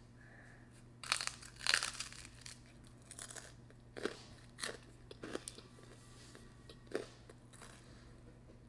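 Crunching bites and chewing of crisp pizza crust: two loud crunches in the first two seconds, then a few scattered softer crunches.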